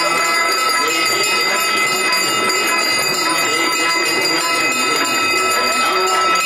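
Many bells ringing at once without pause, the aarti bells, giving a steady shimmer of high ringing tones. A voice sings or chants under them.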